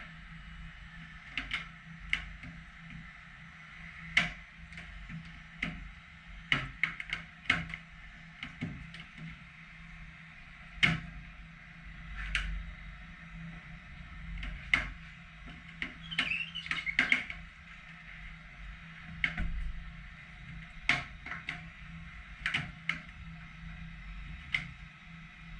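Irregular clicks and knocks of hands handling and pressing a plastic vortex generator into place, over a steady background hum, with a brief high squeak about two-thirds of the way through.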